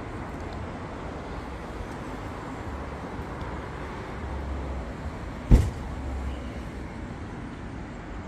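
Steady outdoor background noise with distant road traffic, broken by one sharp, loud low thump about five and a half seconds in.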